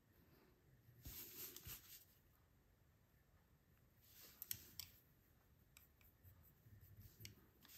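Near silence with faint, light scratching and a few small clicks from a small tool working enamel stitches onto a glass piece, in two short stretches about a second in and around four seconds in.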